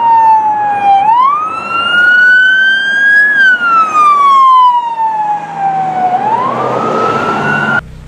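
Emergency vehicle siren wailing in long, slow sweeps of pitch. It dips, climbs, falls slowly, then climbs again near the end and cuts off suddenly.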